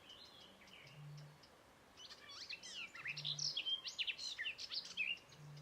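Eurasian bittern booming: three low, hollow booms about two seconds apart, each preceded by a short fainter intake note. Songbirds sing over it with quick high phrases, loudest in the middle.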